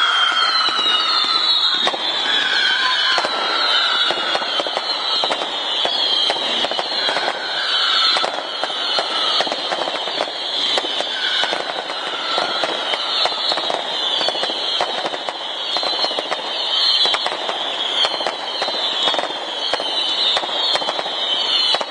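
Fireworks going off in a dense barrage: many overlapping whistles, each dropping in pitch, over a continuous rapid crackle of small bangs.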